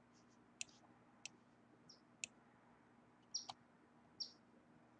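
Near silence broken by a handful of faint, sharp computer mouse clicks, irregularly spaced.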